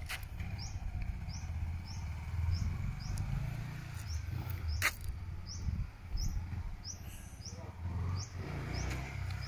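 Small dirt bike's engine running at a distance, a low rumble that swells and fades with the throttle. A short high chirp repeats about twice a second, and there is one sharp click about five seconds in.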